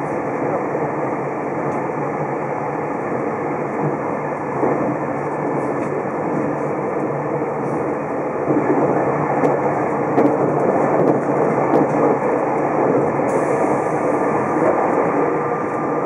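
Steady running noise inside the cabin of a Super Kamui electric limited express train at speed: wheels on the rails and the rumble of the car, growing a little louder about halfway through.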